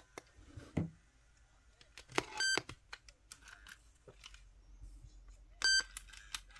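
Clicks and knocks from a Sony WM-EK1 cassette Walkman being handled and operated, with two short high beeps about three seconds apart.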